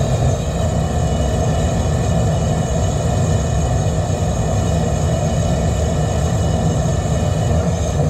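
Blower-fed natural gas burner firing on a test stand: a loud, steady roar of flame and combustion air.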